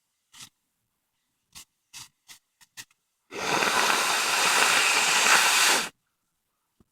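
A person with a cold blowing their nose in one long, loud, hissing blow of about two and a half seconds, which stops abruptly. Several brief, quiet sounds come before it.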